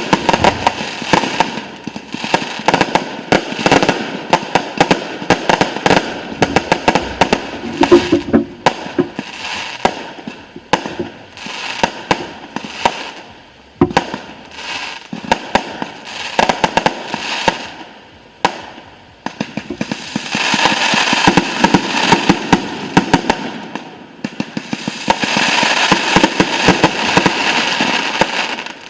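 Fireworks display: a rapid stream of aerial shell bursts and bangs, with two long stretches near the end where the reports merge into dense continuous crackling.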